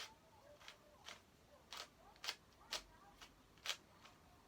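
Plastic clicks of a 3x3 Rubik's Cube's layers being turned as it is solved: about nine short, sharp clicks at an uneven pace, one or two a second.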